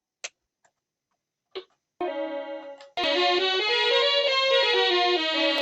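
Two short clicks, then about two seconds in a Big Fun 37-key mini electronic keyboard starts playing a tune; after another click a second later it goes on louder with several notes at once.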